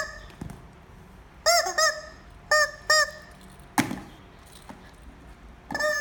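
A rubber chicken squeaky toy squawking as a puppy bites and squeezes it: about six short, honking squawks, several in quick pairs. There is a single thump a little before four seconds in.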